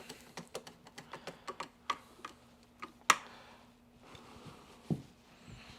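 A screwdriver tightening Loctited screws on a vintage Hoover Decade 80 upright vacuum: a run of small, irregular clicks and taps through the first two seconds or so, a sharper click about three seconds in, and a soft knock near five seconds.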